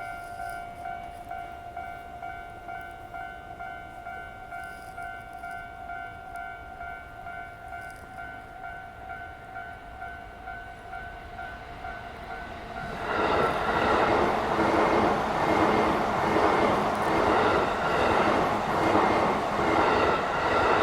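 Railway level-crossing warning bell ringing in a quick, even, repeating two-tone pattern. About thirteen seconds in, a train arrives and passes through the crossing, and the loud rumble and clatter of its wheels and cars take over, with the bell still faintly sounding underneath.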